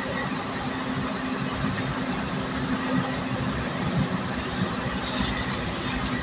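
Steady engine and tyre noise of a vehicle cruising at highway speed, heard from inside the cab, with a constant low hum and a brief hiss about five seconds in.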